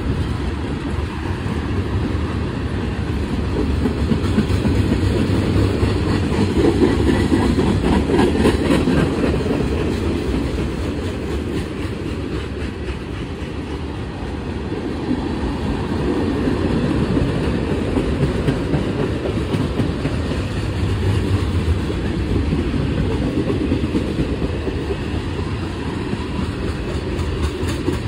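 CSX freight train's cars rolling past continuously, steel wheels clattering over the rail joints.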